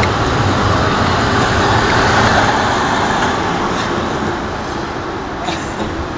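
Wire shopping cart rolling over pavement with a person sitting in it, its wheels and basket rattling as a steady noisy clatter that is loudest about two seconds in and slowly fades.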